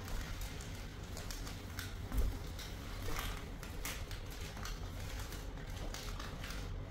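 Irregular light taps and rustles of hands working soil and seeds in plastic seed trays, over a low steady rumble.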